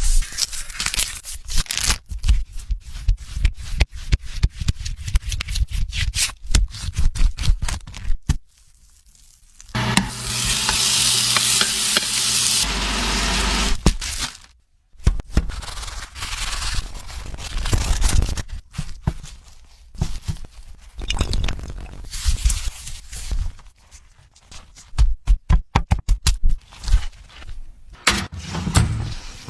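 Food being prepared for an egg dish: rapid, irregular tapping and clicking of utensils, then about three seconds of steady sizzling from about ten seconds in, followed by more clattering and scraping.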